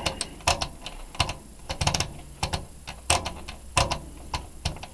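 Sharp mechanical clicks, about a dozen at uneven spacing, two to three a second, as a control in a Hitachi V-202F oscilloscope is worked back and forth by hand, just after silicone grease has been applied to it.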